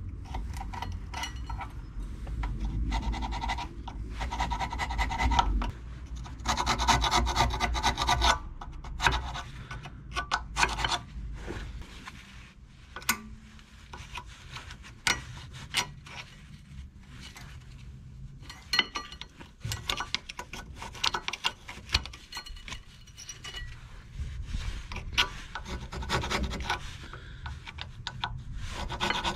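Screwdriver scraping rust and dirt off the brake pad guide surfaces of a VW Golf IV rear brake caliper carrier: irregular strokes of metal scraping on metal, with short pauses between them.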